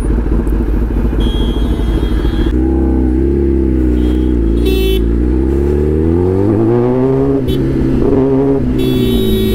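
Kawasaki ZX-10R's inline-four engine under way: a steady low rumble for the first couple of seconds, then the engine note rises and falls with the throttle, climbing about six seconds in.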